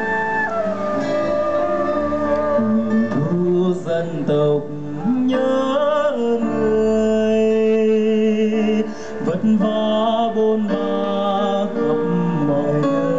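A male singer singing a Vietnamese song, with wavering vibrato on held notes, over a live band of keyboards and electric guitar.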